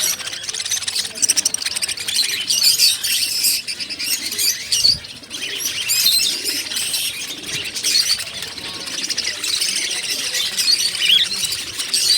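Many small caged birds chirping at once, a dense high-pitched chorus of overlapping tweets that never lets up.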